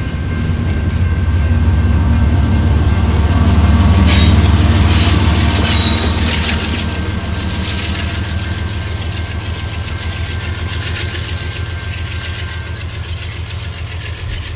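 Freight train rolling past: double-stack container cars rumbling and clattering over the rails. The trailing diesel locomotive, a CSX unit working as the rear distributed-power unit, goes by near the middle, when the rumble is loudest. The sound then fades slowly as the train moves away.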